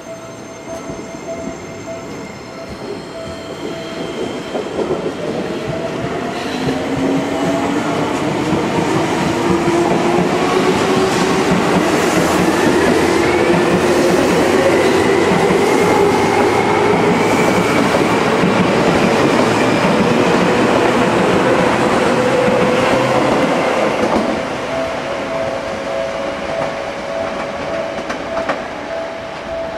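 Seibu 20000 series electric train pulling away and accelerating: a motor whine rising in pitch over the rumble and clatter of wheels on the rails. It swells as the cars pass, then drops about three quarters of the way through.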